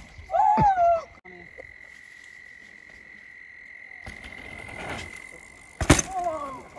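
Mountain bike on dirt jumps: a short, loud, wavering high-pitched squeal about half a second in, and near the end a sharp knock followed by another wavering squeal. A faint steady high whine runs underneath.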